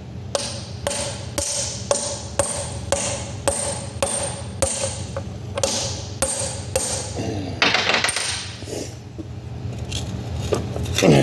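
Hammer blows on a socket head used as a drift, knocking the door out of a 2-inch Safeway valve: about two sharp metal-on-metal strikes a second, each with a short ring. A scraping clatter follows about eight seconds in.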